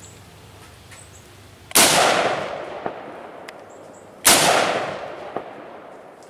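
Two shots from an M14 rifle in 7.62x51mm (.308), about two and a half seconds apart. Each sets off a long echo that fades over about two seconds.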